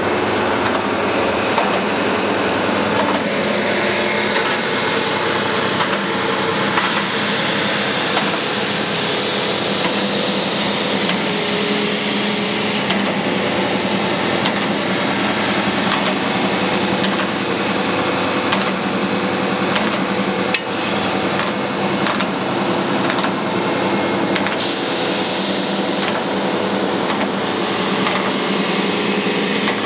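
24-inch Timesaver wide belt grinder running with its 5 hp motor, abrasive belt and wet dust collector: a loud, steady mechanical whirring hum.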